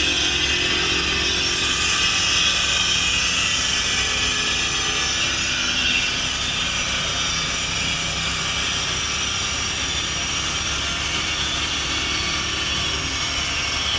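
Steady mechanical noise, an even hiss over a low hum, with no rise or fall in pitch.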